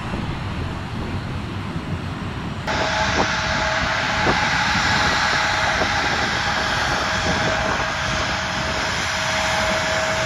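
Wind and a distant airport rumble, then about three seconds in an abrupt change to a Bombardier CRJ regional jet taxiing close by, its turbofan engines giving a steady whine over a hiss.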